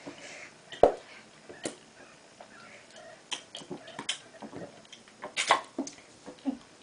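A few scattered sharp clicks and knocks over quiet room noise, the loudest about a second in.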